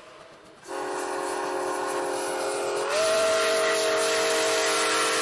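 Train horn sounding one long chord of several notes. About three seconds in, its pitch steps up and it gets louder.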